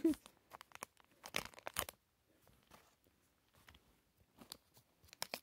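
Crinkly checkered blind-bag wrapper of a Mini Brands capsule being torn open and crumpled by hand, in short scattered rips and crackles, with a quieter pause in the middle.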